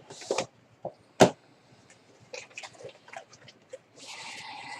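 A cardboard toy box and its plastic contents being handled: scattered small clicks and taps, a sharp click about a second in, and a rustling scrape near the end as the display base is pulled out.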